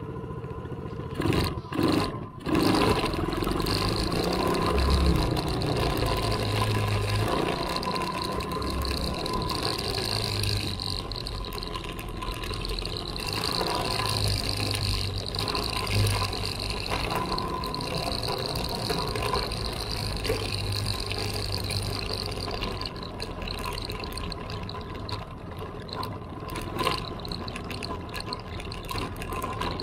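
Small off-road vehicle engine running at a steady speed along a gravel trail, with a steady whine over the rumble of tyres on gravel. A couple of sharp knocks, like jolts over bumps, come one to two seconds in.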